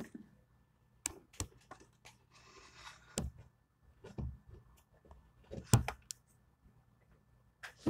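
Handling noise from a phone being moved about: scattered clicks and knocks, a few dull thumps and a short rustle.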